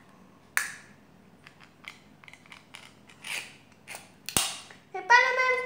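Cat feeding sounds: scattered small clicks and brief crunches from a cat at a plastic food bowl and pet-food packaging being handled, with a sharp click about four seconds in. Near the end a loud, high, wavering voice-like call begins.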